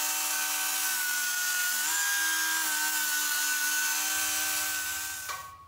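Die grinder running against a drum-brake shoe, a steady high whine that shifts slightly in pitch about two seconds in and dies away near the end. It is grinding down the raised edge of the bonded friction lining that stood proud of the shoe's metal and was rubbing the brake drum.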